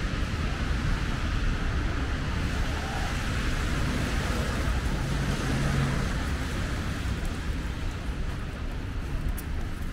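Steady city traffic on a wet road: a continuous hiss of tyres on wet asphalt over a low rumble of passing cars, with a brief engine hum about five seconds in, easing off slightly near the end.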